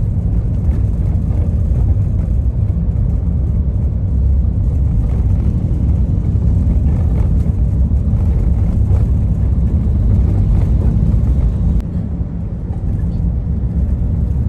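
Steady low rumble of a car driving, road and wind noise heard from inside the car, easing off slightly about twelve seconds in.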